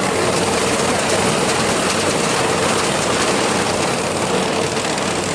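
Engine-driven farm machine running steadily, with a dense mechanical rattle over a constant hum.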